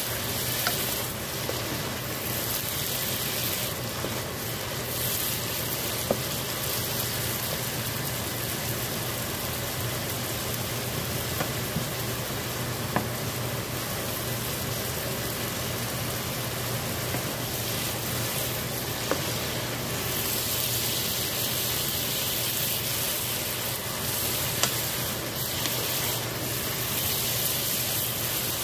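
Mushrooms, spinach, bell peppers and onions sizzling steadily in a skillet, cooking in their own moisture without added water, stirred at times with a wooden spoon. A few sharp clicks stand out now and then.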